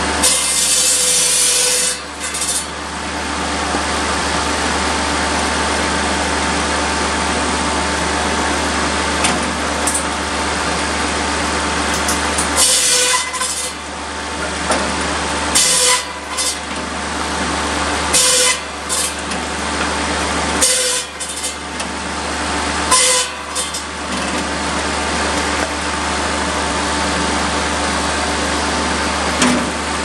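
Buzz saw driven off a Kubota B7100's three-cylinder diesel running steadily, its large circular blade cutting through slab wood and polewood. There is one long cut at the start and a run of about five quick cuts between roughly 12 and 23 seconds in.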